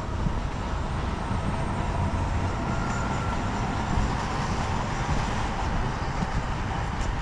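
Steady vehicle noise: a continuous low rumble with a hiss, swelling a little in the middle.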